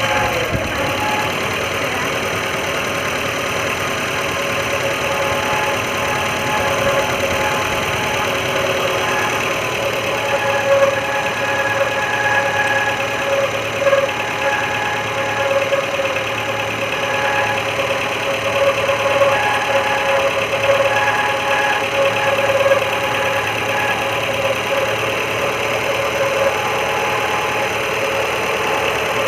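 Maruti Gypsy engine idling, with a steady wavering whine over it from a bad bearing, which the owner puts down to a damaged water pump.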